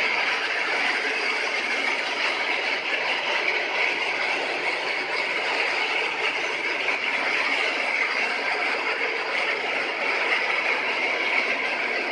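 TM-8000L automatic chicken plucking line running: a steady, continuous mechanical rattle and clatter.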